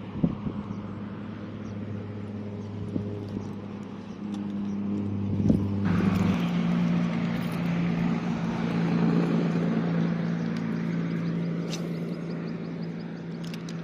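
A motor vehicle's engine running steadily. About six seconds in its hum drops in pitch as a rushing road noise swells, then slowly fades. A few sharp clicks.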